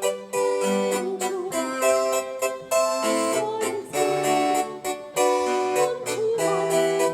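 Piano music: a lively passage of quick, detached notes over held chords.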